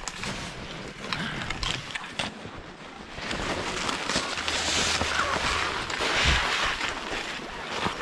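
Wind gusting over the camera microphone on an exposed snow slope, building to a stronger gust from about three seconds in to near the end.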